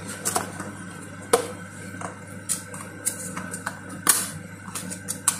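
Light clicks and clinks of kitchen spoons and spice containers being handled, a few scattered knocks with the sharpest about a second in and again about four seconds in, over a steady low hum.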